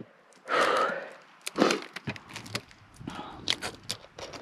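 Gear being handled and packed into a plastic esky: a loud rustling scrape about half a second in, then a series of hard knocks and clunks.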